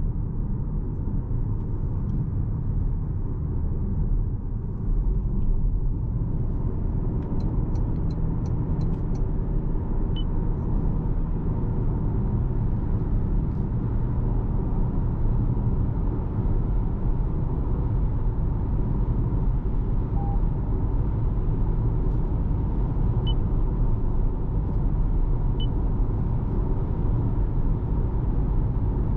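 Steady in-cabin road and tyre rumble from a 2026 Toyota RAV4 hybrid on the move, with a low drivetrain hum and a faint steady whine.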